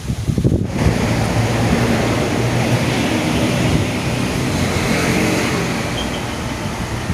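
Strong wind gusting, a loud rushing and low rumbling buffeting the microphone; it jumps up sharply under a second in and holds.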